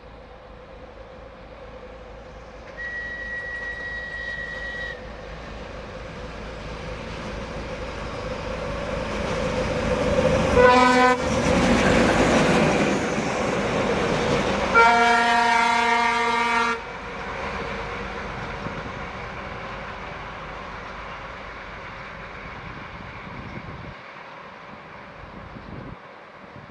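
A ChME3 diesel shunting locomotive approaches and passes, its running noise rising to a peak and then fading. A high steady whistle sounds for about two seconds near the start. Near the middle the horn gives a short blast, then a longer one of about two seconds.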